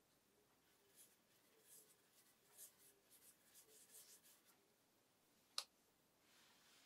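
Fingertips rubbing white polishing compound across a black lacquer guitar body: soft, quiet, uneven rubbing strokes. A single sharp knock comes just before the end as the random-orbit polisher is set down on the body.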